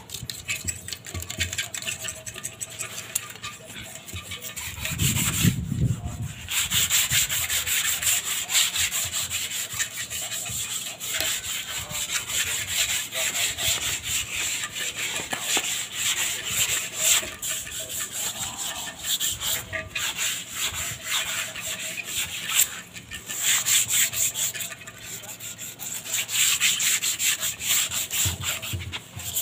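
Several people rubbing down the surfaces of cement planter pots by hand, a fast scratchy scraping of many overlapping strokes that eases off briefly a few times.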